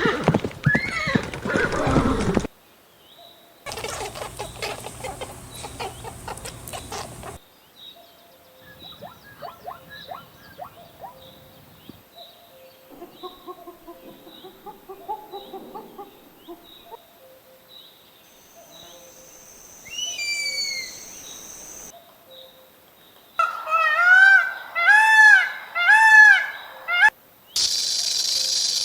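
A string of short animal-call clips cut abruptly one after another, mostly bird and fowl calls: faint repeated calls, a few falling whistled chirps, then four loud arching honk-like calls, and a steady high-pitched drone starting near the end.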